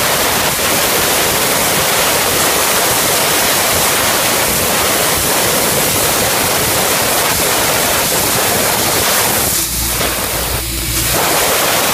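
Laser cutting machine cutting sheet steel, with a loud, steady hiss from the cut and its gas jet. Near the end the hiss thins in two brief dips and a low hum comes in as the cut stops and the cutting head travels along the gantry.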